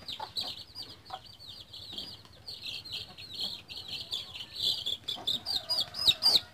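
Week-old native chicken chicks peeping: a rapid run of high peeps, each falling in pitch, growing louder near the end as one chick is caught and lifted out of the coop in a hand. A few faint knocks from the bamboo coop come through underneath.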